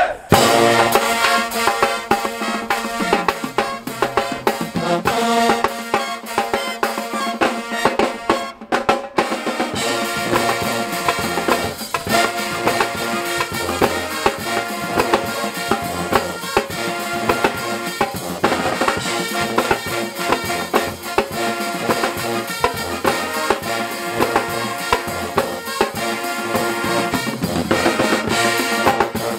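Pep band playing: sousaphones, trumpets and saxophones over a drum kit and marching drums, with a short stop about eight and a half seconds in before the band comes back in.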